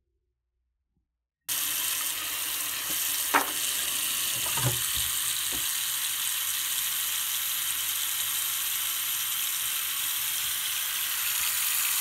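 Bathroom sink faucet running: a steady stream of tap water splashing into the basin and onto a sheet of paper lying in it, starting about a second and a half in. A few brief knocks sound in the first few seconds of the flow, the first the loudest.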